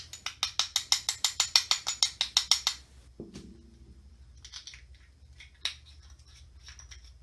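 Rapid, evenly spaced clicking, about seven taps a second for nearly three seconds, from a measuring spoon being tapped against a container to knock out a dose of glitter. It is followed by a few scattered faint clicks.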